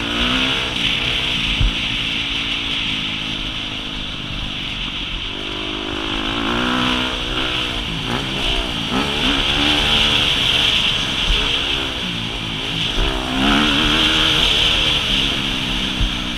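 Dirt bike engine being ridden hard, revving up and dropping back again and again as the throttle is worked and gears change.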